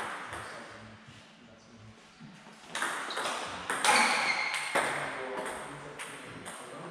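Table tennis rally: the ball clicks sharply off the bats and the table, several hits about half a second apart from about two seconds in, each with a short echo.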